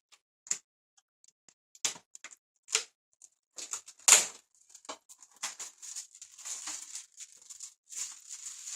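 Scattered clicks and knocks of things being handled, the loudest about four seconds in, then from about five and a half seconds a continuing crinkly rustle like plastic packaging.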